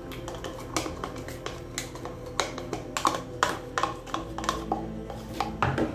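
Hard plastic spoon clicking and scraping against a plastic measuring cup and mixing bowl in a run of irregular taps while stirring a liquid mixture, over steady background music.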